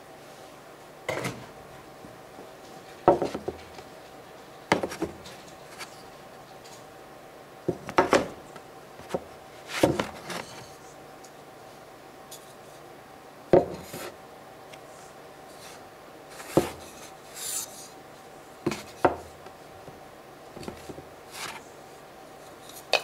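Wooden blocks being picked up, set down and slid on a tabletop: irregular knocks and scrapes of wood, every second or two.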